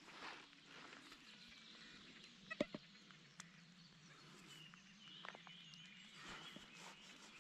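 Near silence: faint outdoor ambience with faint high, wavering chirps, and a few short sharp clicks a little over two and a half seconds in.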